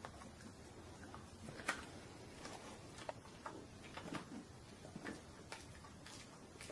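Faint indoor room tone with a few scattered soft clicks and small rustling noises.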